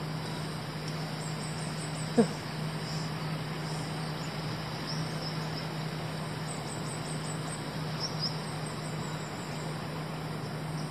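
Steady rush of river water with insects chirping faintly and high, over a constant low hum. About two seconds in comes one short, loud sound that falls in pitch.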